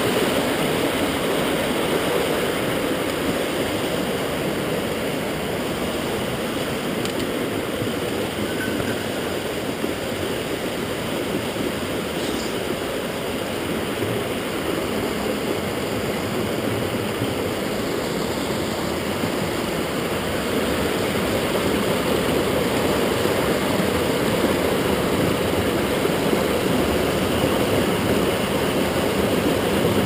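Mountain headwater stream rushing over boulders and small cascades: a steady, even rush of water.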